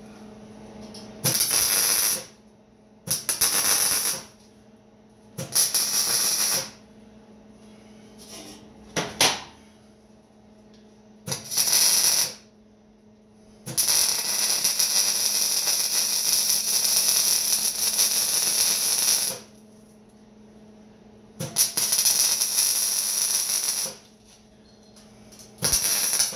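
Welding arc crackling in sharp-edged bursts as steel frame pieces are welded: about seven bursts, most around a second long like tack welds, with one longer run of about five and a half seconds near the middle. A steady low hum runs underneath.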